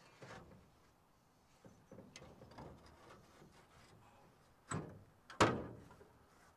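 Radiator being lowered into the radiator support of a 1974 International Scout: light clicks and scrapes of metal handling, then two sharp knocks close together about three-quarters through, the second the louder.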